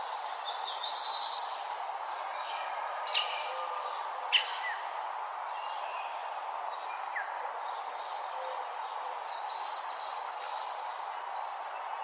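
Morning birdsong: several birds giving short chirps and quick trills, scattered through, the loudest a sharp call about four seconds in, over a steady background hiss.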